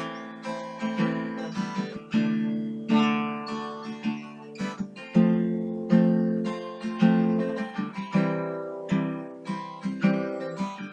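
Acoustic guitar strummed in a steady rhythm, an instrumental break between sung lines.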